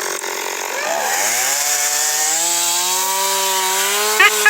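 Chainsaw engine revving up about a second in and then holding a steady high speed, as firewood is cut for a bonfire. A quick, regular clicking starts near the end.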